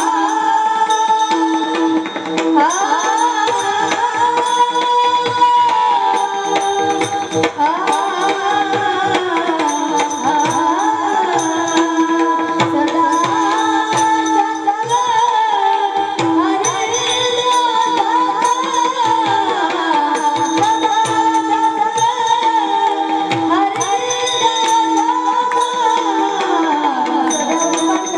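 Marathi kirtan music: a melody that glides up and down over a steady drone, with a jingling hand percussion and a drum keeping time.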